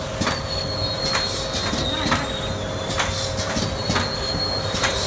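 YFMA-540A automatic laminating machine running: a steady hum with a high whine over it and irregular clicks and knocks, about two a second.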